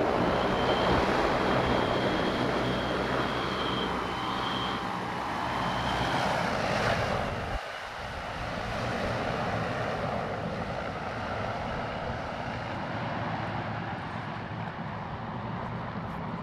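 Joby electric air taxi's six electric propellers whirring as it hovers: a steady rush with a high whine over a low hum. About eight seconds in the sound cuts abruptly to a quieter, steady drone of the aircraft in flight.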